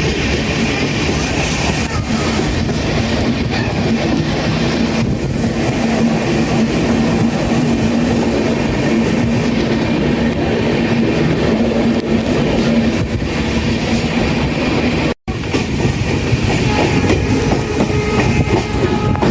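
Train running on the rails: a steady rumble and clatter of wheels, with a steady hum through the middle. The sound drops out completely for an instant about fifteen seconds in, then resumes, with faint high tones near the end.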